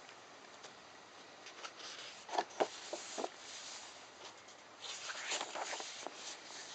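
Soft paper rustling and a few light taps as a paperback book is handled and its pages are turned, in two short spells.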